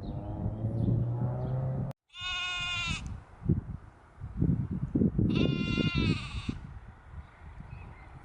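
Blade of grass stretched between the thumbs and blown as a reed whistle, giving two shrill, bleating squeals about a second long, the second slightly longer, with low thumps of handling underneath.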